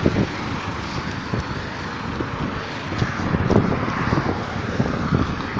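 Steady rush of wind buffeting the microphone, with an irregular low rumble, while moving fast along an asphalt road.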